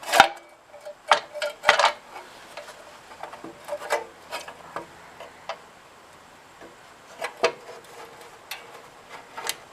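Hand tools and metal parts clicking, knocking and scraping as screws are taken out of a small engine's housing. Scattered sharp clicks and knocks come between stretches of faint rubbing, and the loudest is just after the start.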